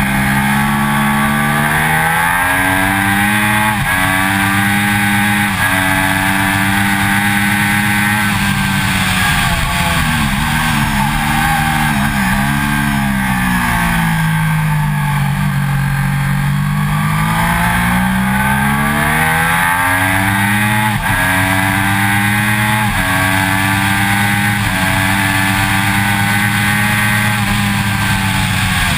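2006 Triumph Daytona 675's three-cylinder engine at track pace: revving up through the gears, with a sharp drop in pitch at each upshift in the first few seconds. Midway the revs fall and waver as it slows and shifts down for a corner, then climb steadily as it pulls out, with more upshifts near the end.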